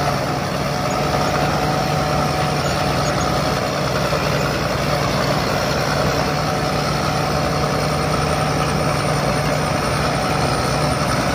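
Sakpattana rice combine harvester running steadily, its engine holding one constant note under the even noise of the machinery.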